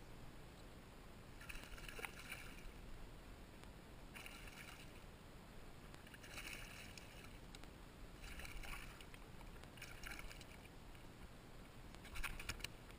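Sounds of a bass being reeled in and landed from a kayak: several short, noisy bursts of reeling and water a second or two apart, then a quick clatter of clicks near the end as the fish is swung aboard.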